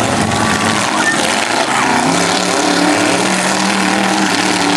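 Demolition derby car engines running hard at high revs, one holding a steady note from about two seconds in.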